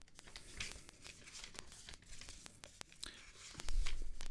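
Faint, irregular clicks and rustling handling noise, with a louder rustle and low thump about three and a half seconds in.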